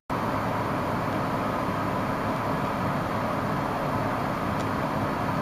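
Steady outdoor background noise, a low rumble and hiss with no distinct events, cutting in after a split-second gap at the start.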